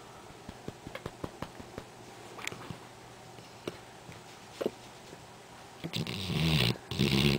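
Black Labrador retriever snoring: two loud snores near the end, after several seconds of quiet with faint scattered clicks.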